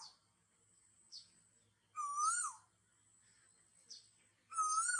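A short whistled, bird-like call that rises and then falls in pitch, repeating at an even pace of about one every two and a half seconds. Faint short chirps and a thin, steady high tone sound between the calls.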